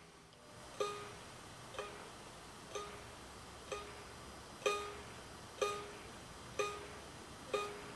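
Kalimba (thumb piano) tine plucked about once a second, the same note repeating eight times in an even rhythm, each note ringing briefly.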